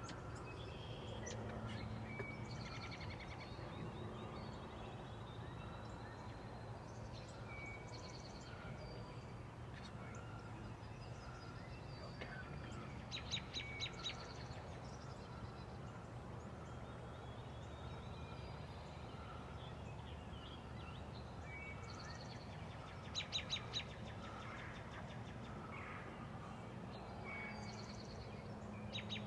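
Songbirds chirping in the woods, with two louder quick rattling runs of notes about 13 and 23 seconds in, over a steady low hum.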